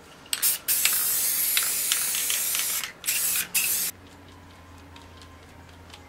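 Aerosol spray paint can spraying in hissing bursts: a short burst, one long spray of about two seconds, then two short bursts.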